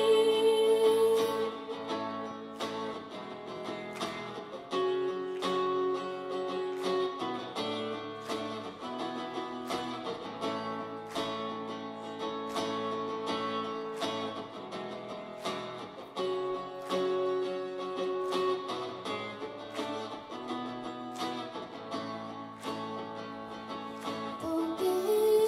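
Amplified acoustic guitar strumming chords in an instrumental break of a song. A woman's singing ends about a second in and comes back just at the end.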